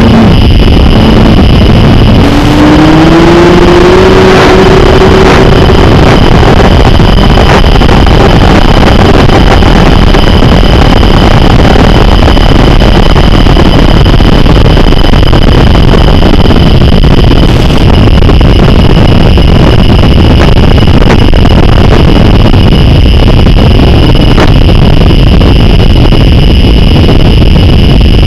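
Loud, steady rushing noise with faint steady high tones, carried on the analogue FPV video link's audio. A fainter whine rises in pitch about two to four seconds in.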